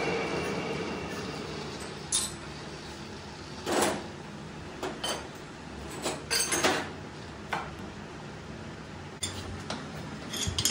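Intermittent metallic clinks and knocks as steel tools and parts are handled at a manual lathe, about ten separate strikes with short gaps between them.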